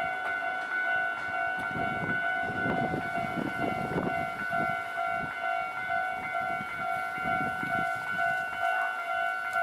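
Japanese level-crossing warning bell ringing steadily. Under it, the low rumble of a Nankai train running over the crossing rises about a second and a half in and fades near the end.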